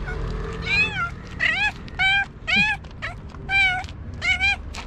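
Tabby cat meowing rapidly: about seven short meows in quick succession, each one rising and falling in pitch.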